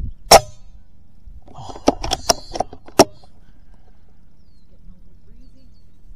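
A PCP air rifle fires once with a sharp crack just after the start, then a quick run of four or five clicks and rattles about two to three seconds in.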